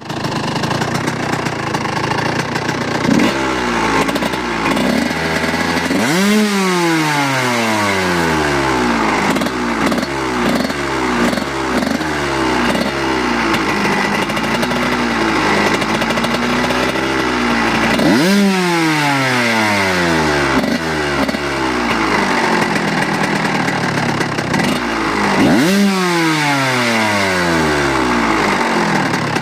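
Kawasaki motorcycle engine running and being revved with the throttle. There is a small blip a few seconds in, then three sharp revs, each snapping up in pitch and falling back slowly to idle over about two seconds.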